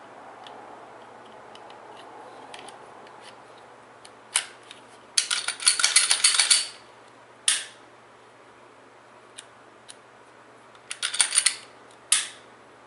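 Light metallic clicks and clinks from handling a Glock 42 pistol and its parts: a few single clicks and two short clusters of rapid clicking, the loudest about midway.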